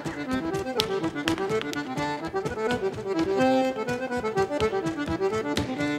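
Accordion playing a traditional Irish dance tune, with the sharp taps of a sean-nós dancer's shoes beating on a wooden stage floor over it.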